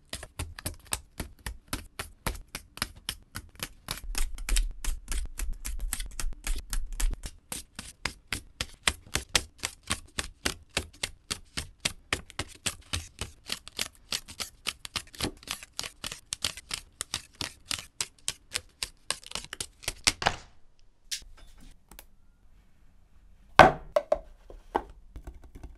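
Sheets being torn one after another off a 3D paper memo block: a quick papery snap for each sheet, about five a second, which stops suddenly about twenty seconds in. A single louder knock follows near the end.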